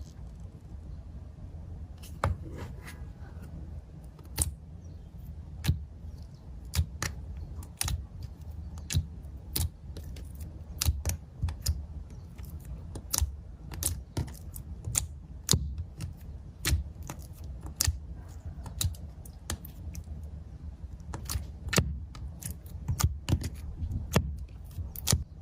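Clear slime being squeezed and poked by hand, giving irregular sharp clicks and pops several times a second over a low steady hum.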